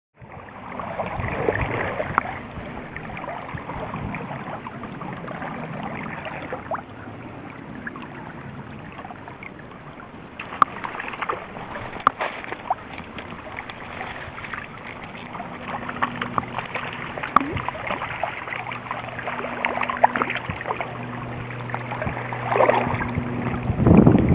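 A small stream running, with wind buffeting the microphone and scattered clicks of handling. A faint low hum joins about two thirds of the way in, and louder bursts come near the end.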